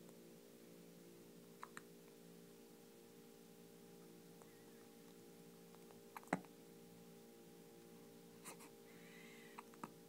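Newborn baby hiccupping with a pacifier in his mouth: a few short, sharp hiccups a few seconds apart, the loudest about six seconds in. A steady low hum runs underneath.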